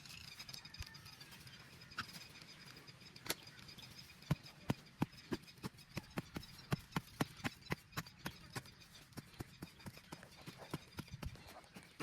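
A rapid, irregular series of sharp knocks or taps, about three to four a second, starting about four seconds in.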